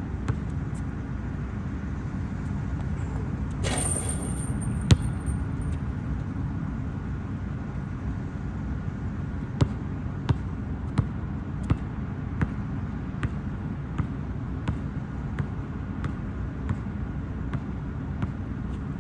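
Basketball bouncing on a hard outdoor court: a loud single bounce about five seconds in, then a steady dribble of about one and a half bounces a second through the second half. A steady low rumble runs underneath, with a brief hiss just before the first loud bounce.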